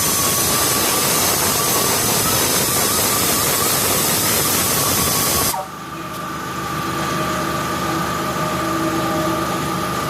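Loud, steady hiss of shop air or a pneumatic tool, which cuts off suddenly about five and a half seconds in. A steady mechanical whine follows and slowly grows louder.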